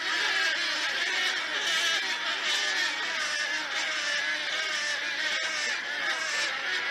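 Many birds calling at once in a dense, unbroken chorus of overlapping wavering calls.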